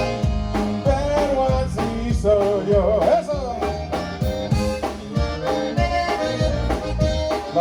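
Live conjunto band playing: an accordion melody leads over bass and drums with a steady beat.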